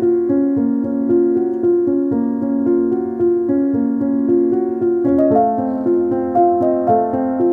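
Background music on a keyboard, a piano-like melody of held notes over chords. About five seconds in it moves into a new, slightly higher passage.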